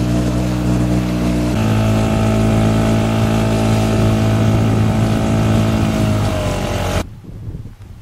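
Boat motor running steadily at cruising speed. Its tone shifts abruptly about a second and a half in and dips slightly just before it cuts off sharply about seven seconds in, leaving faint wind.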